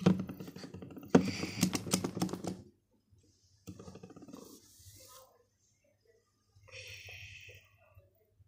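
Small clicks and rustles from handling a plastic nail polish remover bottle and a cotton pad, mixed with a girl's wordless vocal sounds, loudest in the first few seconds and sparse after that.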